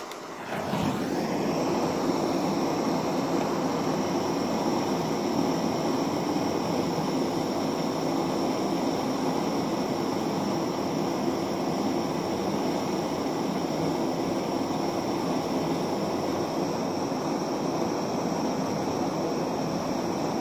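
Handheld gas blowtorch starting with a click, then burning with a steady hiss and a faint high whistle as its flame melts a block of wax.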